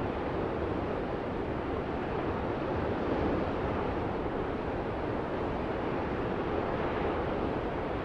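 Ocean surf: a steady, unbroken wash of breaking waves with no single distinct crash.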